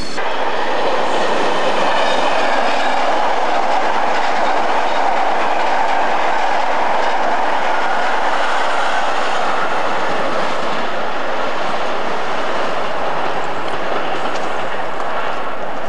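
InterCity passenger train running past at speed: a steady rush of wheels on the rails that eases a little as it draws away.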